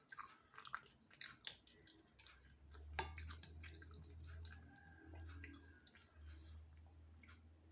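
Faint, close-up chewing by a person eating fish and rice, with many small wet clicks from the mouth. A low hum comes in about two and a half seconds in.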